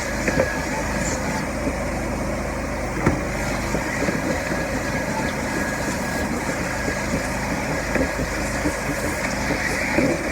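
A carpet-cleaning machine's electric motor running steadily with a low hum, working on a floor-mat carpet, with a few small clicks.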